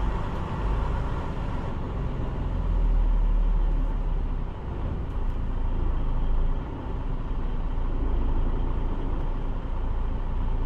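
Semi-truck running, a steady low rumble with a broad noise over it, swelling a little about three seconds in.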